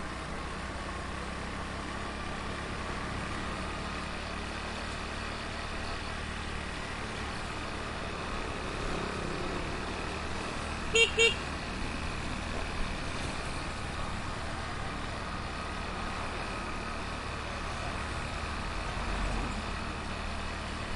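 Heavy street traffic: a steady din of vehicle engines and road noise, with a vehicle horn tooting twice in quick succession about halfway through.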